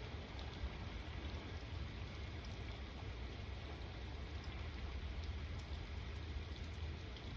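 Steady rain falling, with scattered ticks of individual drops over a low, even rumble.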